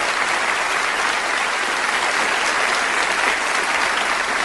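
Steady audience applause from a live concert recording, dense clapping with no music under it.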